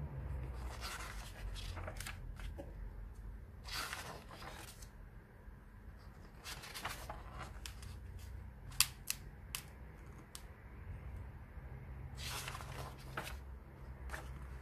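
Pages of a graphic novel being turned by hand: four rustling swishes, each about a second long, a few seconds apart, with a quick run of sharp paper clicks in the middle.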